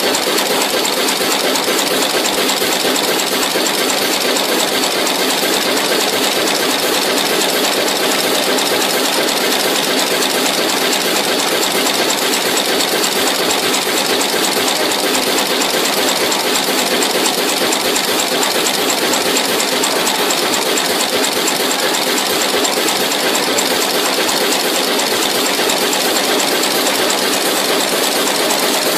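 Automatic through-hole insertion machine running: a rapid, even mechanical clatter as its insertion head presses components into a circuit board, steady throughout.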